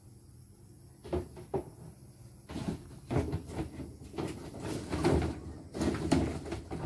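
Bamboo poles clattering and knocking against one another and against a plastic drum as they are stood upright in it. Two single knocks about a second in, then a busier run of knocks that is loudest about five to six seconds in.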